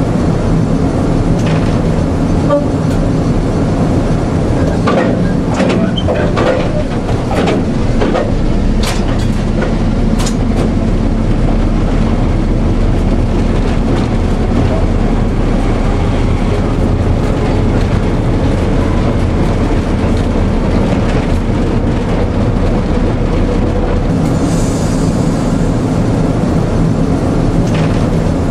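Class 03 diesel shunter D2112 running steadily as it works along the track. A cluster of sharp clanks and knocks comes about five to ten seconds in.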